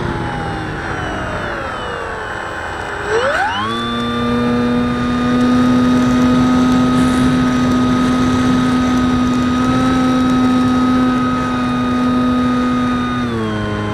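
Electric motor and propeller of a 2000 mm Super Skysurfer RC plane, heard through its onboard FPV camera: the whine slides down in pitch as the throttle is eased back, rises sharply a few seconds in to a steady higher whine, then drops slightly near the end. A steady rushing hiss runs beneath it.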